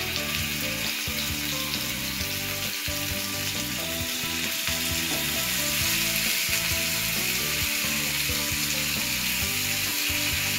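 Hot oil sizzling in a grill pan as marinated chicken drumsticks are laid in one by one, with background music underneath.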